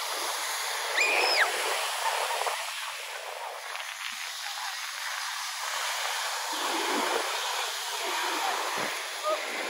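Steady wash of surf on a sandy beach, with a brief high-pitched call that rises and falls about a second in.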